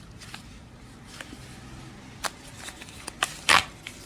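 Packets of nasal strips and their packaging being handled: soft rustling with scattered small clicks and crinkles, the loudest a short crackle about three and a half seconds in.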